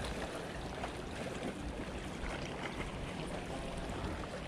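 Shallow sea water lapping and splashing steadily against shoreline rocks.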